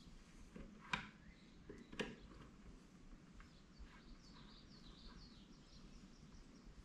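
Near silence, with two light clicks about a second apart near the start and faint bird chirps in the background.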